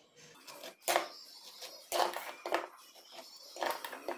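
A knife clinking and scraping against a small steel bowl while scooping sauce and spreading it on slices of bread, a few short scrapes and clinks about a second apart.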